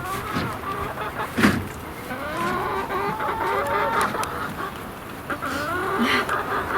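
A flock of chickens clucking, many short calls overlapping one another, with a single sharp knock about a second and a half in.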